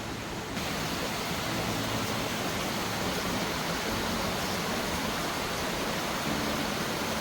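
Waterfall cascading over rocky ledges: a steady rush of falling water, slightly fuller and brighter from about half a second in.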